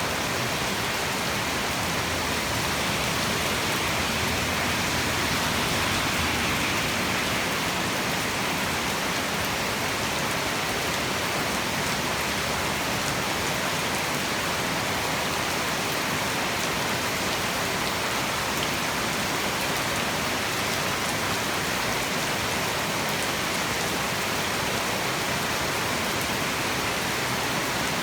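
Heavy tropical rain falling steadily, a dense even hiss of rain on surfaces, swelling slightly a few seconds in.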